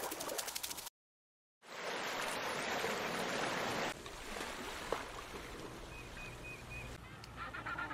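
Running water, a steady rushing hiss that starts after a short silence, is louder for about two seconds, then drops to a softer hiss with a single click about five seconds in.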